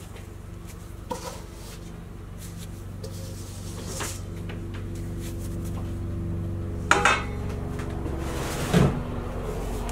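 Kitchen clatter: a few sharp knocks and clanks, the loudest a quick pair about seven seconds in and another near the end, over a steady low hum.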